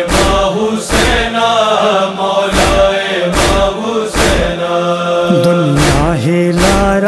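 Noha intro: voices holding a long chanted drone over a slow, even beat of deep thumps about every 0.8 seconds. About five seconds in, a solo voice starts a wavering wordless line above the chorus.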